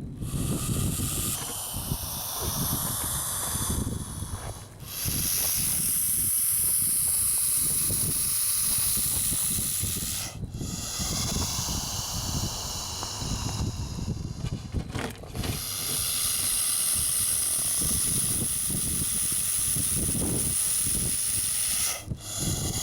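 Bullsnake hissing defensively: long, loud exhalations forced out through its glottis, each several seconds long. About four hisses in a row, broken by short pauses as it draws breath. Wind rumbles on the microphone underneath.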